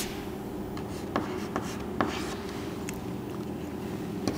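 Chalk writing on a chalkboard: short scratchy strokes with a few sharp taps as the chalk meets the board.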